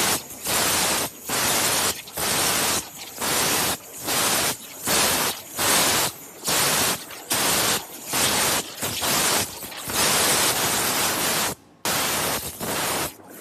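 High-pressure abrasive waterjet stream hissing from the cutting head of a 60,000 PSI intensifier-pump CNC waterjet, switching on and off in short spurts with brief gaps more than once a second. It cuts off abruptly near the end.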